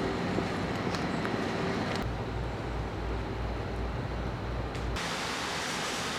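Steady rumble and hiss of a moving vehicle, heard in three short clips cut together; the middle clip has a heavier, pulsing low rumble.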